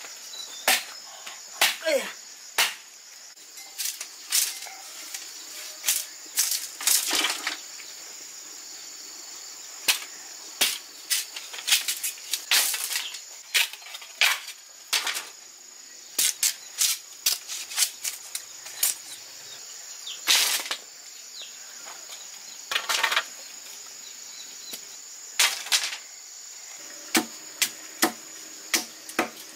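Machete chopping and splitting green bamboo on a wooden log: irregular sharp chops, sometimes in quick runs, over a steady high buzz of insects.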